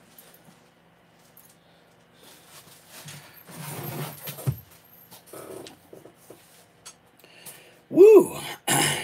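Shuffling and handling noises, then near the end a man's short vocal sound that rises and falls in pitch, followed at once by a breathy burst.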